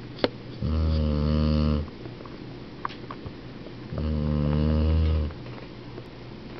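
A 12-year-old dog snoring in its sleep: two long, even snores about three seconds apart, each lasting a little over a second.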